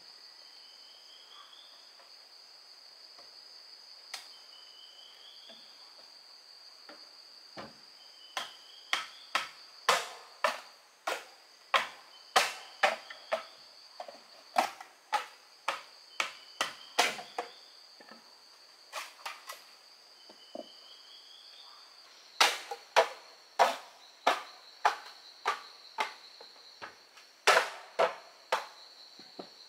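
Sharp knocks of a hand tool striking a bamboo pole, about two a second in two long runs with a short break between, over a steady high drone of insects.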